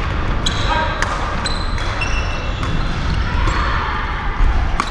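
Badminton doubles rally: a string of sharp racket hits on the shuttlecock, with court shoes squeaking on the hall floor between them.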